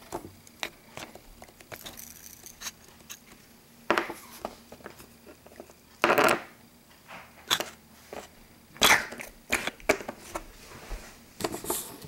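Hands handling small plastic toy figures and a plastic dish: scattered short taps, scrapes and rustles, a few of them louder knocks.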